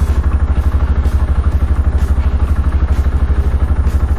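Rusi Sigma 250 motorcycle engine idling steadily, a rapid, even low chug, with its idle set slightly high so it won't stall.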